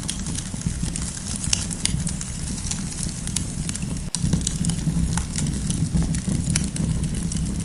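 Campfire burning with frequent irregular sharp crackles and pops over a steady low rumble of the flames, with a split-second dip in the sound about four seconds in.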